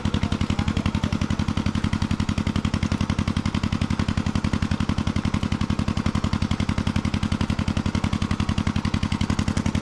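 Engine running steadily with a rapid, even, deep beat of about eight pulses a second.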